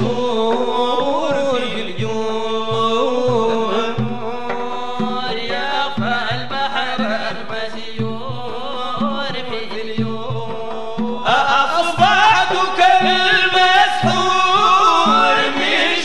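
Sudanese Sufi madeeh: voices chanting a praise song to the Prophet over a steady drum beat. The singing gets louder and brighter about eleven seconds in.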